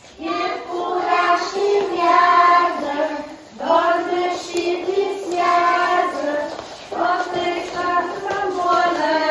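A group of young children singing a ring-game song together, unaccompanied, in phrases of about three seconds each.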